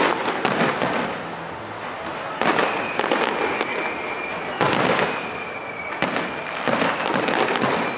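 Aerial fireworks shells bursting: a series of sharp bangs, roughly one a second, with crackling between them. A thin, steady high tone runs underneath from about two and a half seconds in.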